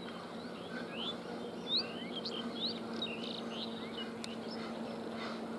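Birds chirping: a run of short, quick rising calls through the middle, over a steady low hum.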